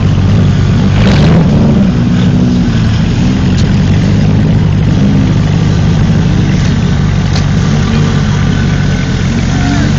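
A vehicle engine running close by, its pitch rising and falling again and again as it is revved, as in a vehicle working through mud. There is a brief rushing swell about a second in.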